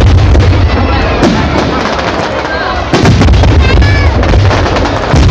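Fireworks display going off: a dense, continuous rumble of booming bursts with sharp cracks about a second in, about three seconds in and near the end.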